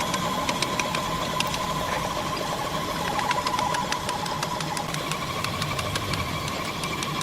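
A motor-driven workshop machine running steadily with a high, even hum, with rapid irregular clicks and knocks over it; the hum shifts slightly higher about five seconds in.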